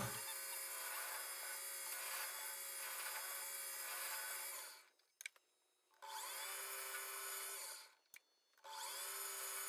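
Metal lathe running, turning down a brass bar: a steady machine whine made of several fixed pitches. The sound cuts out abruptly twice for about a second and half a second, and each time it returns with a short glide in pitch.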